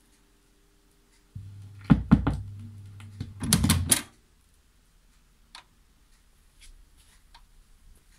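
Lenco SL-301 turntable mechanism: a low hum starts abruptly about a second and a half in, with a run of clunks and clicks over the next two and a half seconds. It stops suddenly, leaving only faint scattered clicks.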